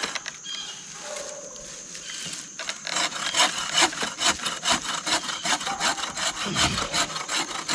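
Hand saw cutting through wood in quick back-and-forth strokes. The strokes ease off briefly just after the start and resume strongly about three seconds in.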